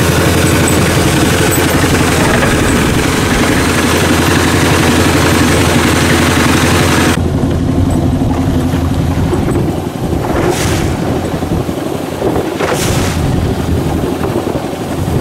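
A small fishing boat's motor runs steadily with a fast even beat, then stops abruptly about seven seconds in. Wind and waves lapping at the hull follow, with a couple of short splashes.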